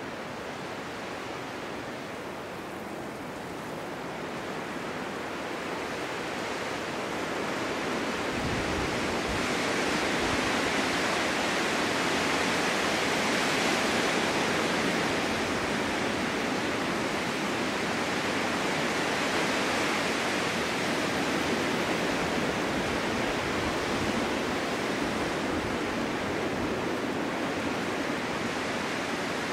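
Winter storm wind blowing steadily, swelling into a stronger gust over several seconds, then easing a little and holding steady.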